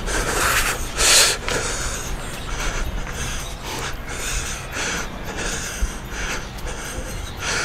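A man breathing forcefully in short, noisy puffs, about once or twice a second, while he shakes his whole body in an energy-shake exercise.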